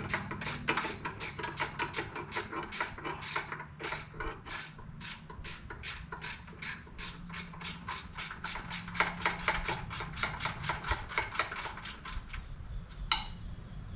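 Ratchet wrench clicking steadily, about four clicks a second, as a bolt holding the outboard's lower unit is backed out. The clicking stops near the end, and one single click follows.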